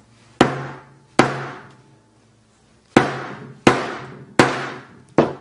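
Six hard hammer blows on a Samsung Galaxy S5 smartphone, unevenly spaced, each a sharp crack that rings briefly; the phone's screen cracks under them.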